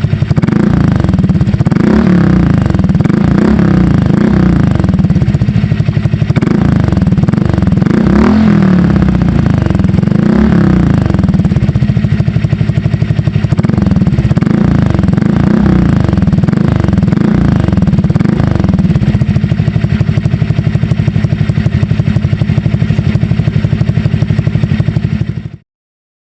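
Honda Click scooter's single-cylinder engine revving through an SC Project aftermarket exhaust, the throttle blipped over and over so the pitch rises and falls. It stops abruptly near the end.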